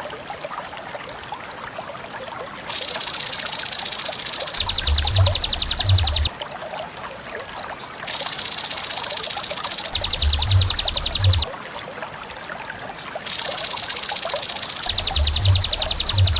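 Loud, shrill cicada-like insect call, repeated three times. Each call is about two seconds of a steady high buzz that switches to a fast pulsing buzz for about two seconds, then stops for about two seconds.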